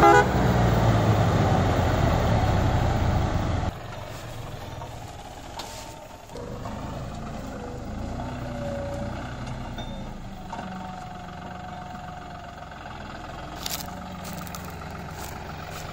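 Farm tractor diesel engine running, loud and steady, then dropping abruptly about four seconds in to a quieter, more distant engine hum that runs on.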